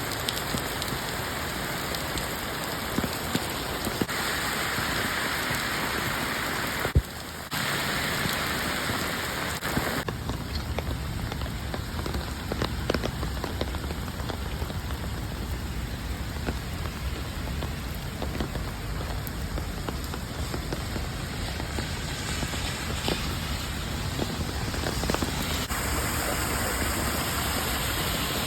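Heavy rain falling steadily, a dense hiss with scattered drop taps. The sound shifts abruptly a few times, with a sharp click about seven seconds in, and a low rumble lies underneath from about ten seconds in.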